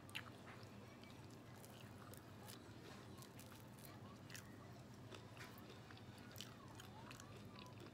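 Faint close-up chewing of crispy fried chicken skin, a scatter of small crunches and crackles while the mouth works.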